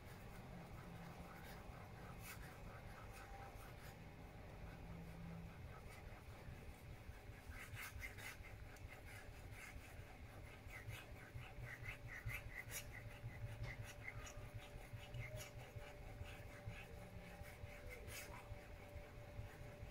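Straight razor being honed on a 10,000-grit whetstone: the steel edge scrapes faintly across the stone in repeated back-and-forth strokes, with small ticks. The strokes are clearest in the middle of the stretch.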